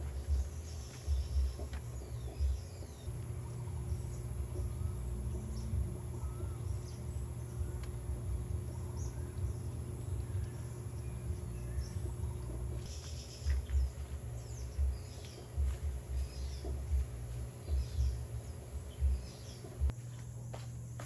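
Outdoor ambience of birds chirping in short high calls, over irregular low rumbles and a steady low hum.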